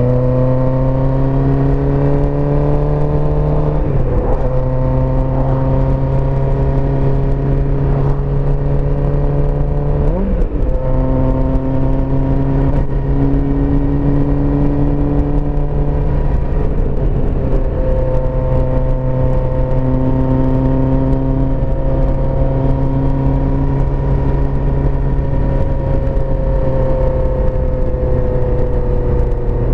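1984 Suzuki GSX-R 400's inline-four engine running steadily under way, heard from the rider's position. The note drifts gently in pitch and breaks briefly twice, about four and ten seconds in.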